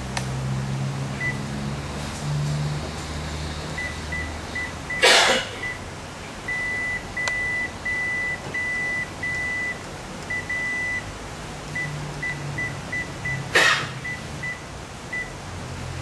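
Key-press beeps from a Konica Minolta bizhub C220/C280/C360 copier's touch panel as a password is typed in: short high beeps, with a run of longer beeps in the middle while the panel shows a password-mismatch warning. Two loud short noises cut across, about five seconds in and near the end.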